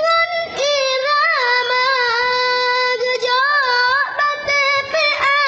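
A child singing unaccompanied in a high voice, with long held notes whose pitch wavers and glides, broken by short pauses between phrases.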